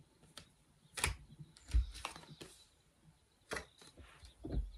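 Oracle cards being handled: a card drawn from the deck and lifted, giving a few soft clicks, flicks of card stock and dull thumps against the table.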